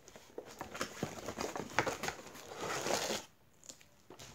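Clear plastic toy packaging crinkling and a cardboard insert rustling as they are handled and pulled apart, in small irregular crackles. The sound drops away for about a second near the end.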